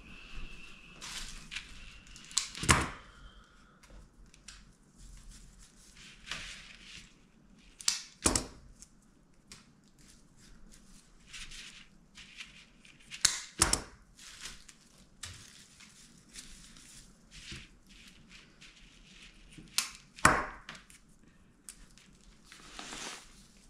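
Hand work on balloon and craft materials: soft rustling broken by about four sharp snaps or clicks, a few seconds apart, with a faint high squeak in the first few seconds.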